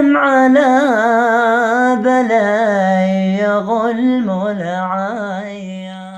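A single male voice singing a long wordless, melismatic phrase of Yemeni Bedouin dan, unaccompanied. The voice winds and wavers around a low note, then holds it and fades out at the close of the song.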